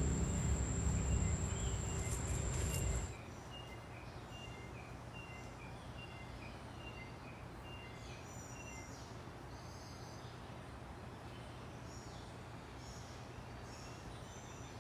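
A low steady hum with a thin high whine cuts off suddenly about three seconds in. It gives way to quiet outdoor ambience of birds and insects, with short chirping calls repeating and some higher calls later on.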